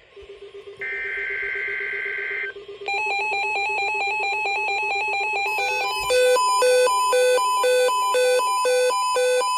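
Emergency Alert System end-of-message data burst: a harsh warble of two alternating high tones, lasting under two seconds, about a second in. From about three seconds a steady electronic tone with fast pulsing follows, and from about six seconds a repeating pattern of electronic beeps joins it.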